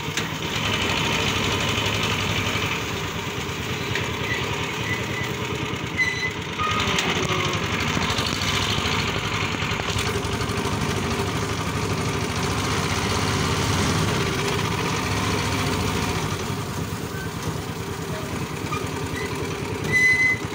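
Steady ride noise from inside a moving tricycle sidecar: a continuous rumbling and rattling. Brief high-pitched beeps come about six seconds in and again near the end.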